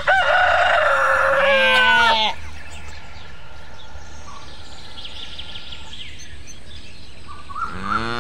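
A rooster crows once over the first two seconds, the crow falling in pitch at its end. Near the end a cow starts a low moo, with faint bird chirps in between.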